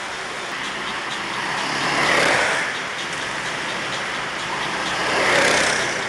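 Go-kart engines running on an ice rink, with two karts passing close by, about two and five seconds in. Each pass swells up and fades away over the steady drone of the other karts.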